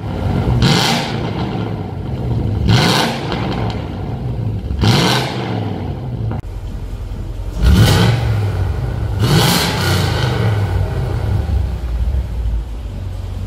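Mercedes-Benz C43 AMG's 4.3-litre V8 revved five times from idle through a flap (valved) exhaust, each rev climbing and dropping back quickly. After the last one, about ten seconds in, it settles into a steady idle.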